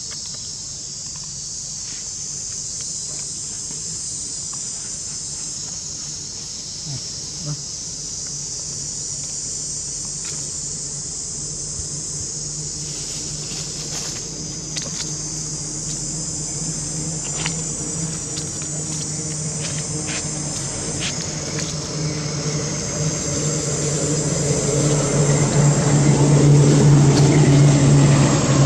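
Steady high-pitched buzzing of an insect chorus, with a low engine hum from a vehicle underneath that grows louder over the last several seconds.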